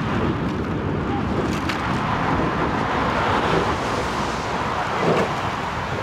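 Steady wind rumble on the microphone, with a rushing noise that swells and fades in the middle and a couple of faint clicks.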